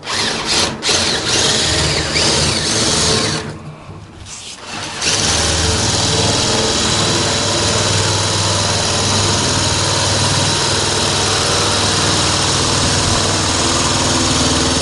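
Electric sheet-metal shears cutting galvanized duct sheet metal along a marked line, running in short stops and starts at first, then steadily from about five seconds in.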